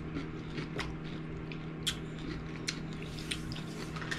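People chewing bites of dill pickle, with scattered short clicks from the chewing, over the steady hum of a microwave oven running.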